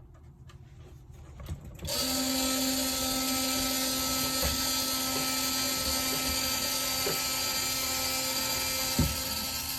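The small electric motor of an automatic chicken coop door starts about two seconds in and runs steadily with a whine, lowering the door, with a single knock near the end.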